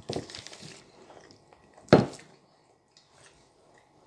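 A person eating face-down from a plate without using their hands: soft chewing and mouth noises, with one short, sharp sound about two seconds in.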